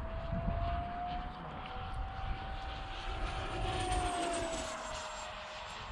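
Electric ducted fan of a Freewing F-35 Lightning II 70 mm model jet, a steady whine as it flies a pass. The pitch drops about two-thirds of the way through as it goes by.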